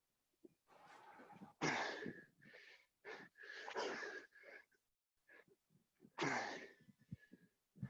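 Heavy, wheezing breaths of people exhausted by burpees, a few hard exhalations a couple of seconds apart.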